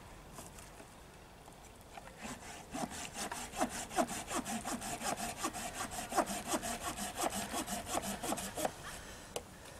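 Hand saw cutting through a branch of firewood in quick, even back-and-forth strokes that start about two seconds in and stop near the end.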